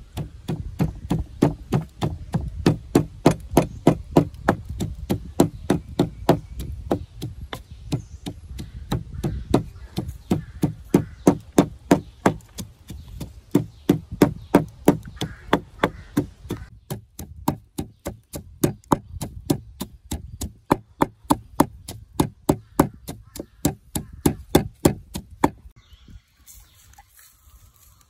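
Steady, rapid chopping: a blade struck down again and again, about three strokes a second, that stops shortly before the end.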